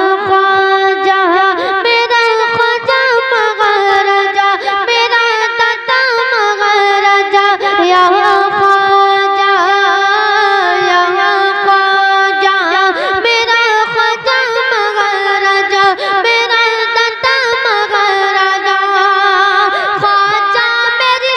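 A boy singing a devotional manqabat into a microphone, drawing out long held notes with wavering ornaments.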